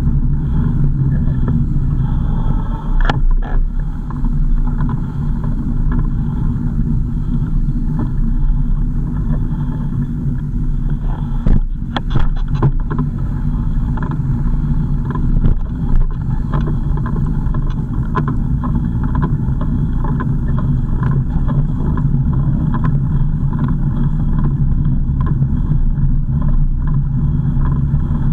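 Car driving: steady engine and road hum, with a few short knocks about 3 seconds in, around 12 seconds and near 16 seconds.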